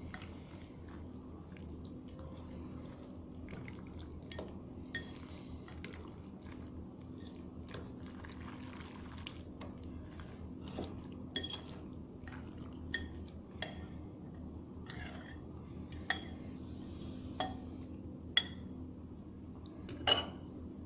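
A spoon stirring macaroni in a thick cheese-and-milk sauce in a bowl: irregular clinks of the spoon against the bowl, some ringing briefly, with soft squelching of the mixture between them, over a steady low hum.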